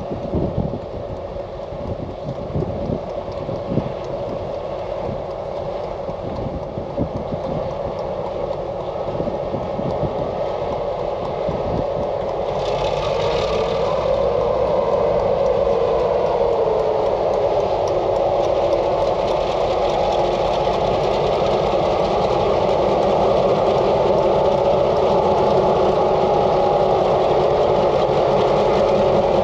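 Diesel-hauled ore train running: rapid clicking and knocking at first, then a steady engine sound that grows louder.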